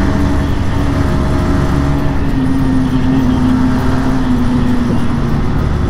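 Motorcycle engine running at cruising speed inside a road tunnel, under a heavy rumble of wind and road noise. Its steady drone eases slightly lower in pitch as the bike slows, then fades near the end.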